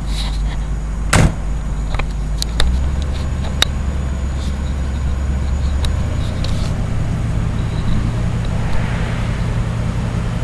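1959 Cadillac convertible's power top being raised: a steady low hum from the top's pump that shifts pitch a couple of times as the frame lifts, with a sharp clunk about a second in and a few lighter clicks.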